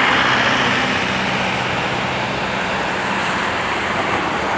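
Boeing 767-300's twin Rolls-Royce RB211 turbofans at taxi power: a steady jet rush with a faint low hum underneath as the airliner rolls along the taxiway.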